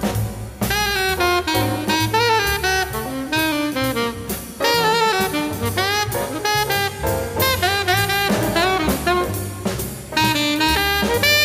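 Small-group jazz recording: an alto saxophone plays quick phrases of short, bending notes over bass and drums.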